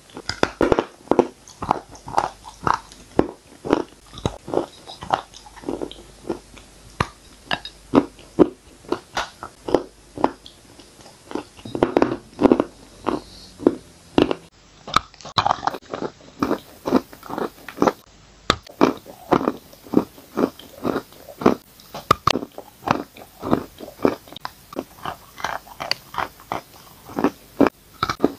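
Close-miked biting and chewing of chalk: sharp, dry crunches repeating about two to three times a second as pieces of chalk are bitten off and ground between the teeth.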